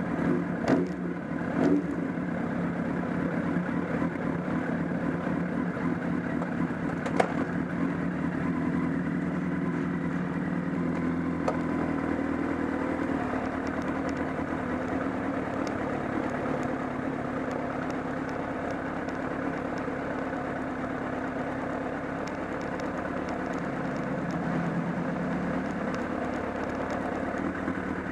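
Honda CBR1000RR inline-four engine running steadily with a clattering noise from around the engine, which the owner says grew stronger along with a loss of torque. A single sharp click about seven seconds in.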